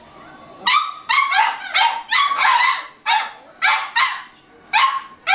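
Beagle puppies barking in short, high-pitched yips, about ten in quick, uneven succession.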